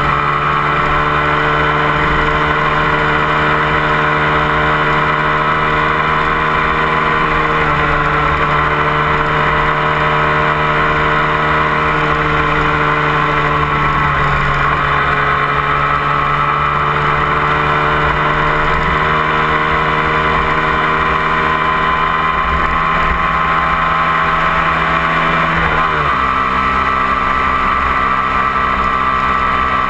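A 250 cc twin-cylinder sport motorcycle engine running under load at highway speed, with wind rushing over the fairing. Its note dips about halfway through, climbs slowly for several seconds, then drops sharply near the end as the rider shifts up a gear.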